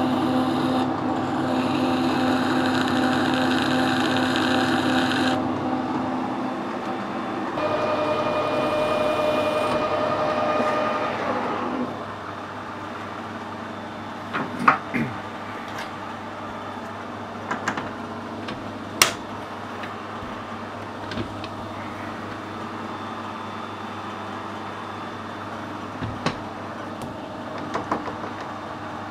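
Metal lathe running with its chuck spinning, while a compressed-air nozzle hisses at the bore in two bursts that start and stop sharply. About twelve seconds in the lathe stops, leaving a low steady hum and a few sharp metallic clicks as the quick-change tool post is set up with a parting tool.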